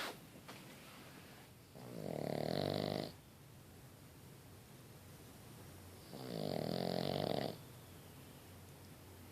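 Boston Terrier puppy snoring in its sleep: two drawn-out snores about four seconds apart, each lasting over a second.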